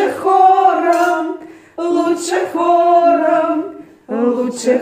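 Women singing a Russian folk-style song together without accompaniment, in long, drawn-out phrases with short breaths between, three phrases in all.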